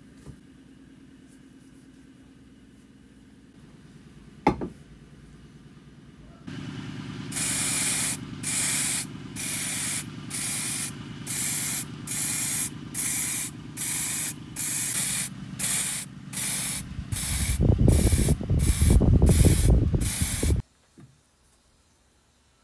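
About a dozen short bursts of spray hissing, each around half a second with brief gaps, over a steady low hum. A loud low rumble joins the last few bursts, then everything stops suddenly.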